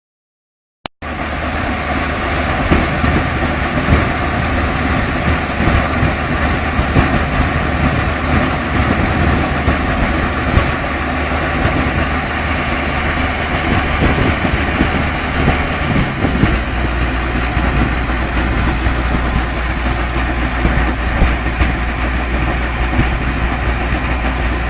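Engine running steadily, starting about a second in; its low rumble changes and grows heavier about two-thirds of the way through.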